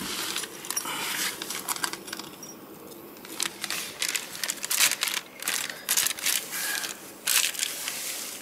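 Rustling and scraping of a cardboard box and its packing, with many short clicks and crinkles of a plastic parts bag and small metal parts being handled, busier from about three seconds in.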